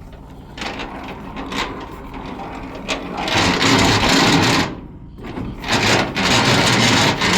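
Rusted trailer landing gear being cranked by hand, its dry gears and legs grinding noisily in two loud spells with a short pause between; the noise comes from rust and lack of lubrication.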